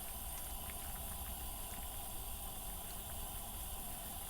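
Hot pot of broth simmering, a steady bubbling hiss with a few faint pops.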